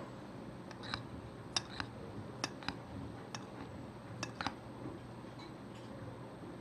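Light clinks and taps against a mixing bowl, about ten in all and mostly in the first four and a half seconds, as a dry flour-and-spice coating mix is worked by hand, over a faint steady hum.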